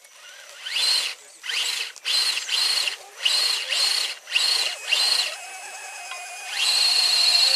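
Small electric motor of a radio-controlled scale crawler truck whining in about seven short throttle bursts, each rising in pitch as it spins up. It then runs steadily from about two-thirds of the way in.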